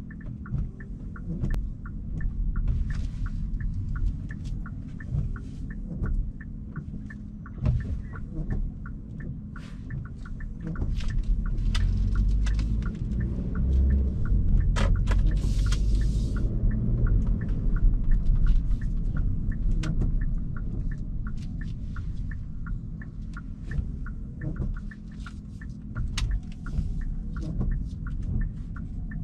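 Hyundai Kona Hybrid driving, heard from inside the cabin: a steady low road rumble with a low hum and scattered small ticks and rattles. The rumble grows louder about eleven seconds in, with a short hiss partway through, and eases again near the end.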